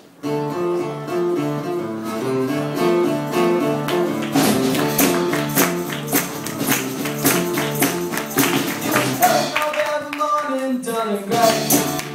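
Live band music: a repeating plucked-string riff, joined about four seconds in by a steady percussion beat. Near the end the beat drops out briefly under a sliding pitch, then comes back in.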